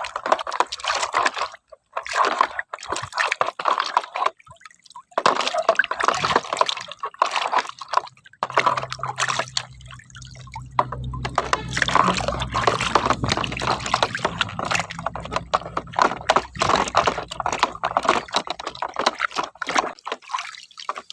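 Water sloshing, splashing and dripping as plastic toy guns are rinsed by hand in clean water, in uneven strokes with short pauses. A low steady hum joins about eight seconds in and stops near the end.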